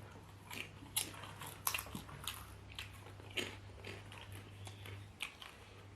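Close-up eating sounds of potatoes being bitten and chewed: short, irregular clicks and smacks about every half second, over a steady low hum.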